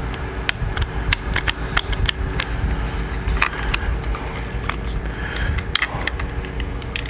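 Hand screwdriver backing out a screw from a motorcycle handlebar control housing, making a run of sharp little clicks, about four a second at first and then more scattered, over a steady low hum.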